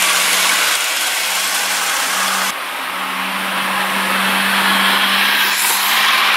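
Small electric model train motors whirring with a steady hum as the trains roll along the track; the sound changes abruptly about two and a half seconds in, and near the end a train rushes close past.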